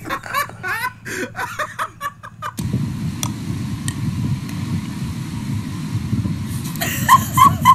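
Excited voices in the first couple of seconds. Then wind buffets a phone microphone with a steady, choppy low rumble. High-pitched voices cut in near the end.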